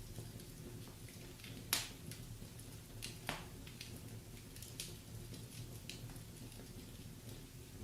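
Wood fire crackling in a fireplace: scattered small snaps, with two louder pops just under two seconds in and just over three seconds in, over a steady low rumble.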